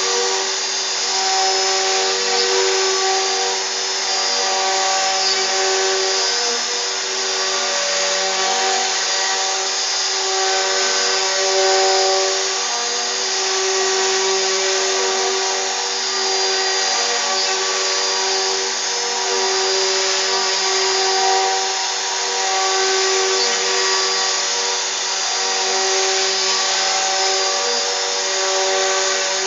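CNC router cutting a 3D relief carving: a steady spindle whine with a cutting hiss, and machine tones that switch on and off every second or two as the head moves.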